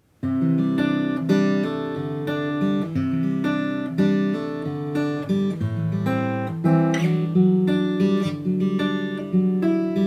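Taylor acoustic guitar playing chords, recorded through a camera's built-in microphone; it starts a moment in after a brief gap of silence.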